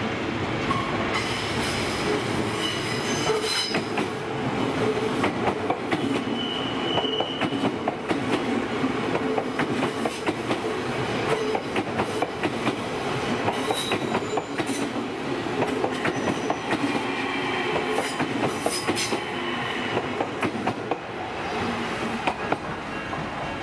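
Odakyu Line commuter electric train passing close by over a level crossing: wheels clattering over rail joints in quick clicks, with short high-pitched wheel squeals now and then. The train noise drops near the end as the last cars go by.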